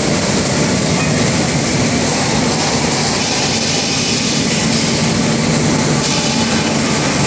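Plastic woven-bag and film washing line running at full operation: a loud, steady industrial machinery noise from its motors and washing equipment, with a steady low hum that grows stronger about five seconds in.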